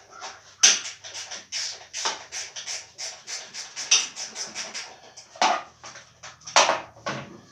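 Hand-tool work on a lawnmower carburetor's float bowl: a quick run of short scratchy, clicking strokes, about four or five a second, with a few louder scrapes around the start and near the end.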